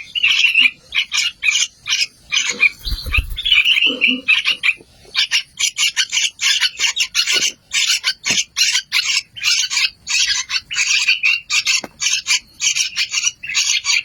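Yellow-vented bulbul (trucukan) nestlings begging: a rapid, near-continuous stream of short, high chirps coming in runs with brief gaps, and a low thump about three seconds in.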